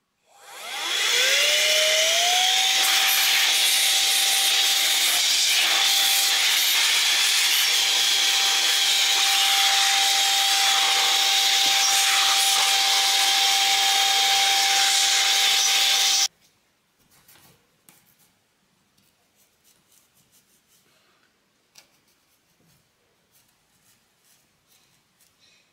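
Handheld electric air duster spinning up with a rising whine, then blowing a steady rushing stream of air into the sewing machine's mechanism to clear out dust. It cuts off abruptly about 16 seconds in, and faint rubbing and light clicks follow.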